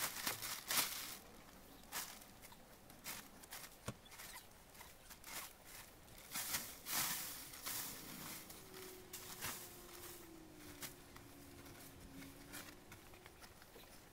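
Dry straw rustling and swishing in irregular bursts as it is forked and tossed down from a stack with a pitchfork. The bursts come thick for the first few seconds, then more sparsely.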